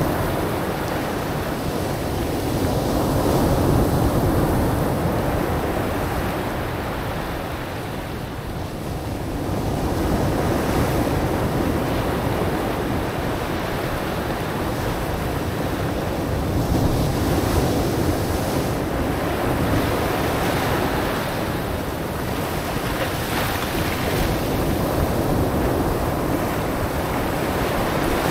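Ocean surf breaking and washing up a black sand and pebble beach, the rush swelling and easing every several seconds as each wave comes in, with wind rumbling on the microphone.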